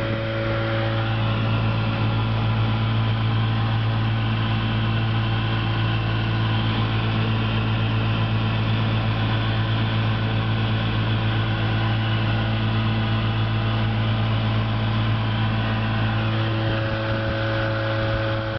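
1966 Sea King 35 HP two-stroke outboard motor, built by Chrysler, running loud and steady at speed under load, pushing a small boat at about 10 mph.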